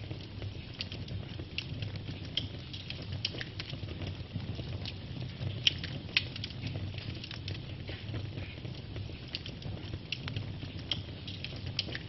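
Wood fire of burning logs crackling, with frequent sharp pops over a low steady rumble of the flames; two louder pops come about halfway through.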